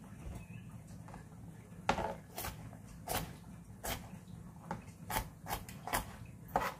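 Kitchen knife chopping on a cutting board, mincing ingredients finely: separate, irregularly spaced knocks, about one or two a second, starting about two seconds in.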